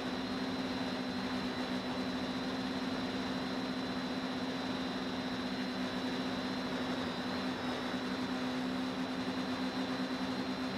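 Quadcopter's electric motors and propellers in flight, heard from the camera on the aircraft itself: a steady hum with a thin high whine above it, over a steady hiss.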